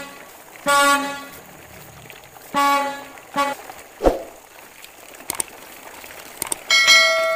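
Truck horn sound effect honking three times in short toots. After it comes a brief falling swoosh, then mouse clicks and a bell chime from a subscribe-button animation.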